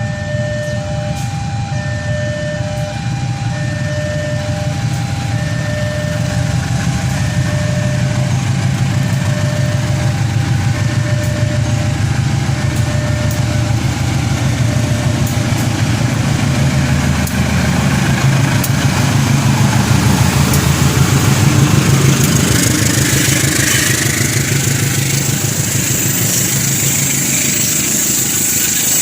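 A level-crossing warning signal sounds a two-tone beep about once a second and fades out by about halfway. Meanwhile the deep engine rumble of an approaching diesel locomotive grows louder, loudest around twenty seconds in, and gives way near the end to the rushing hiss of the passing train.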